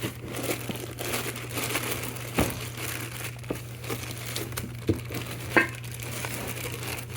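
Brake kit packaging crinkling and rustling as it is handled and unpacked, with scattered short taps and clicks, a few sharper ones near the middle and later on.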